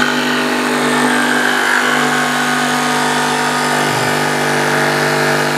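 Makita DJV184 18 V cordless jigsaw running at a steady pitch as a narrow blade, on orbital setting 1, saws a tight curve through a wooden board. The motor's whine is heard over the rasp of the blade in the wood.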